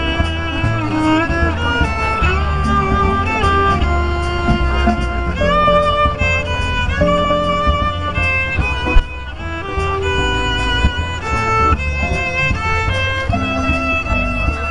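Jazz violin playing a swinging melody line with a band behind it: low bass notes moving underneath and regular light drum and cymbal strokes keeping time, with one sharp accent about nine seconds in.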